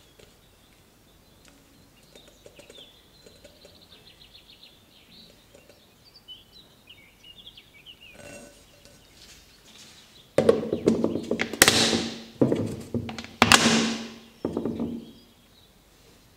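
A small electric motor runs in five short bursts of about a second each, starting about two-thirds of the way in, with a steady hum under noise in each burst.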